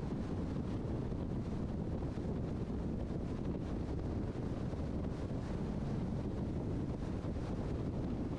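Steady road and wind noise of a car driving at highway speed: an even low rush with no distinct engine note or other events.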